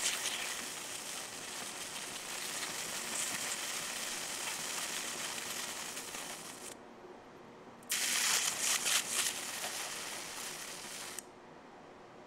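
High-voltage arcs from a ZVS-driven flyback transformer crackling and sizzling across the metal layer of a CD-R, burning it away. The arcing stops about seven seconds in, starts again about a second later, and cuts off abruptly about a second before the end.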